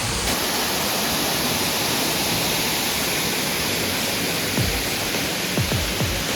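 Steady rush of a waterfall. Near the end, electronic music begins with a few sharp, falling bass beats.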